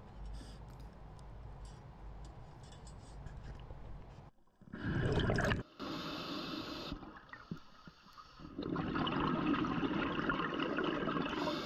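Scuba regulator exhaust bubbles heard underwater: a quiet low hum with faint ticks, then bubbles rushing in bursts, a short loud one about five seconds in and a long one over the last three seconds.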